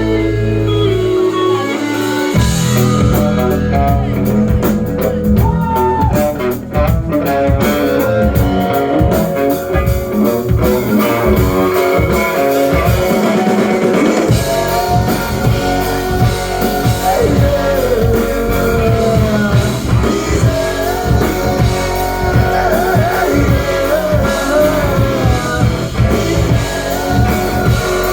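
Rock band playing an instrumental passage: a held low chord gives way, about two seconds in, to a steady bass and drum-kit beat, with an electric guitar playing bending lead lines on top.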